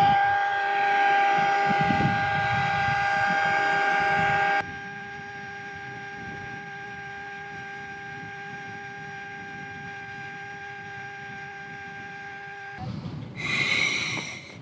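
Small electric inflation pump running with a steady, even-pitched hum as it inflates a packraft. The hum drops in level about four and a half seconds in and stops shortly before the end. It is followed by a couple of short breathy puffs as a man blows into an inflation bag.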